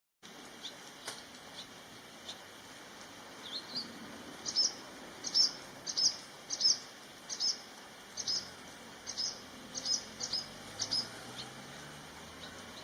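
Barn swallow alarm calls: sharp, high, clipped notes, a few faint ones at first, then a steady run of loud, mostly doubled calls about every 0.7 seconds that tails off near the end.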